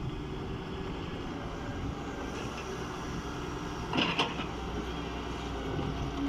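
Doosan excavator's diesel engine running steadily, with one short knock about four seconds in.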